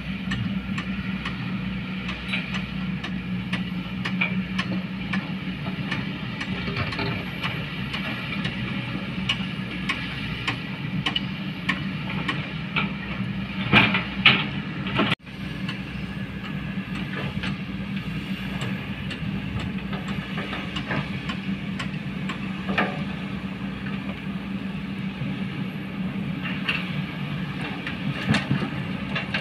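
Kobelco hydraulic excavators running steadily while their buckets dig and scrape rocky soil, with scattered clanks and knocks of stone against steel. A burst of loud knocks comes about halfway through.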